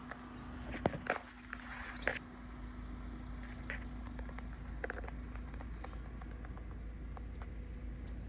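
Steady high-pitched chirring of insects in dry scrub, with a few sharp snaps and rustles of brush about one and two seconds in, over a low steady rumble.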